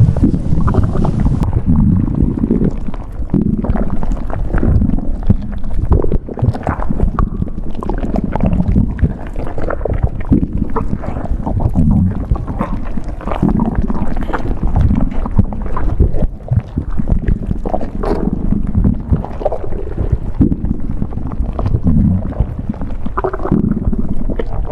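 Stomach growling and gurgling: a long, continuous run of irregular low rumbles and squelching gurgles, loud throughout.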